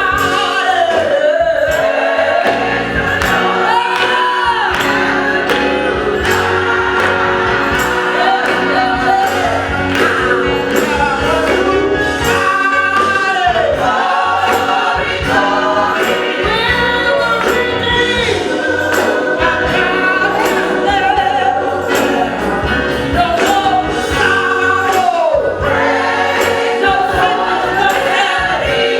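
Gospel choir singing with instrumental accompaniment over a steady beat.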